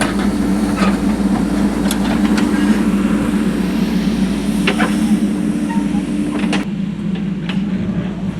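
An engine running steadily with a constant low drone, with scattered clicks and knocks over it.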